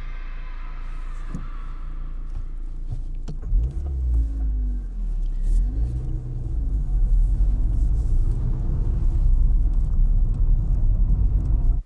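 Car engine and road rumble heard from inside the cabin, getting louder about three and a half seconds in. The engine pitch rises and falls several times as the car accelerates, and the sound cuts off suddenly at the end.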